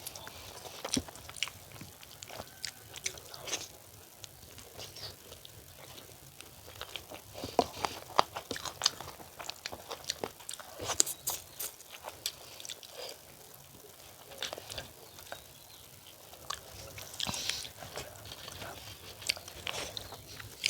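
Close-up eating sounds: a person chewing spicy chicken skin curry, with irregular mouth clicks and smacks.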